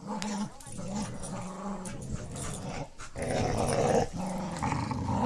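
Dogs growling in play while tugging on a toy, a pit bull terrier and a puppy. The growling starts abruptly, comes in several long stretches with short breaks, and is loudest about three to four seconds in.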